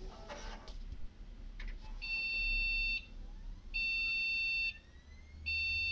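PC motherboard BIOS beep code at power-on: two steady electronic beeps of about a second each, then a third, longer beep starting near the end, with a faint rising whine underneath. The beep code signals a graphics card error, here because the card's power cable is unplugged. The full sequence is two short and one long.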